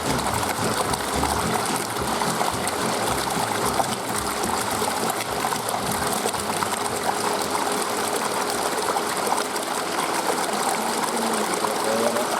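Steady rush and trickle of water running into an indoor fishing pond.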